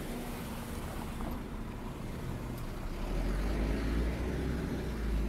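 Road traffic: a motor vehicle's low rumble swells a little over halfway through and stays loud, as a car or other vehicle passes close by.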